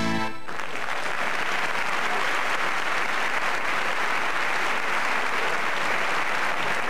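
Music ends about half a second in, then a large audience applauds steadily.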